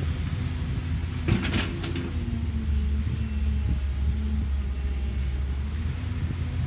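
Excavator's diesel engine running with a steady low rumble that grows heavier a little under three seconds in, with a brief noisy burst about a second and a half in.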